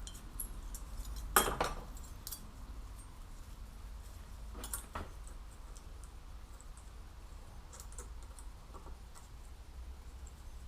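Metal parts and tools clinking and knocking, with a sharp clatter about one and a half seconds in, two more knocks around the middle, then a few faint ticks over a low hum.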